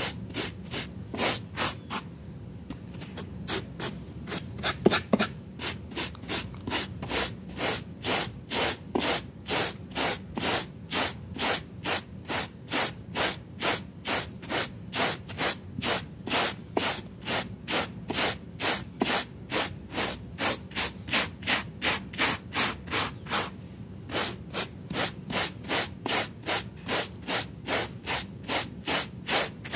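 Stiff-bristled hand scrub brush scrubbing back and forth over a wet, muddy rug: a rhythmic scratchy rasp, about two to three strokes a second, with a short pause about two seconds in.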